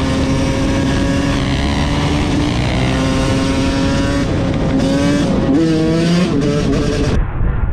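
Several motorbike engines running together, holding revs and then revving up and down. Near the end there is an abrupt cut to a duller-sounding recording of engines.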